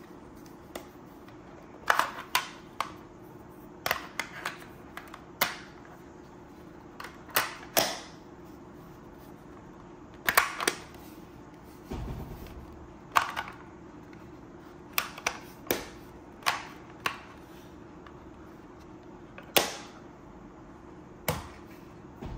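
Scattered sharp clicks and taps, about twenty at irregular intervals, from hands handling the hard plastic parts and cardboard box of an electric precision screwdriver kit: bit tubes and a white plastic case knocking and being set down. There is a duller thump about halfway through.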